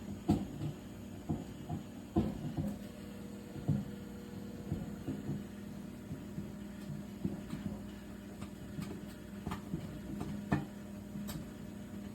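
Irregular clicks and light knocks of fingers pressing the buttons of a microwave's control panel, over a steady low hum.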